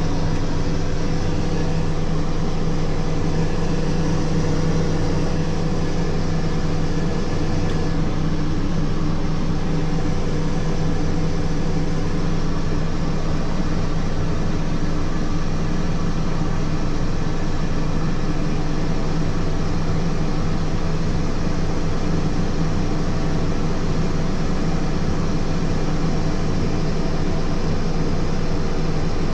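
Turboprop engine of a Merlin IIIB, a Garrett TPE331 turning a five-blade MT propeller, running steadily, heard from inside the cockpit: a constant drone with a steady hum and whine over an even rush of noise.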